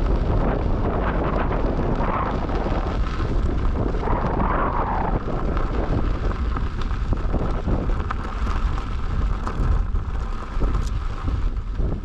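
Wind buffeting the microphone of a rider moving at speed on an electric unicycle, a loud steady rumble with many small knocks from the rough trail.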